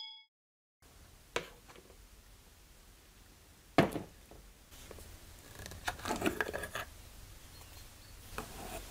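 Tail of a short bell-like notification chime at the start, then a glass jar being handled and opened on a wooden bench: a sharp knock near four seconds in, a cluster of clinks and scrapes from its lid a couple of seconds later, and another knock near the end.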